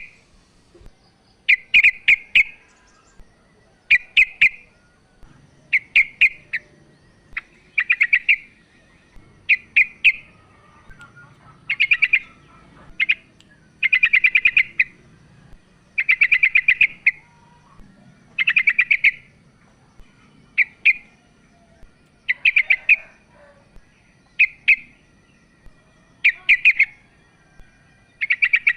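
Female yellow-vented bulbul (trucukan) calling: short, fast chattering phrases, about one every two seconds.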